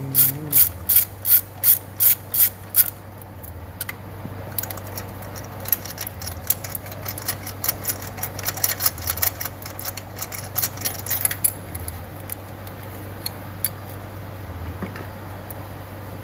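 Socket ratchet clicking in quick strokes as a spark plug is turned in the cylinder head of a Toyota Probox's four-cylinder engine: loud, even clicks about three a second at first, then quicker and fainter clicking that stops about eleven seconds in. A steady low hum runs underneath.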